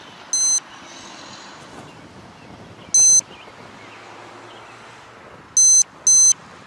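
AcuRite lightning detector sounding its alert: four short high-pitched electronic beeps, one about half a second in, one about three seconds in, and two in quick succession near the end. Each beep signals a lightning strike it has detected. A faint steady background noise lies underneath.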